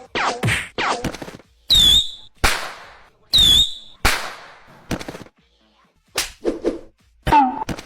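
A quick string of dubbed-in comedy sound effects: sharp gunshot-like bangs and hits, two loud ones carrying a short high whistle, and some with a falling pitch.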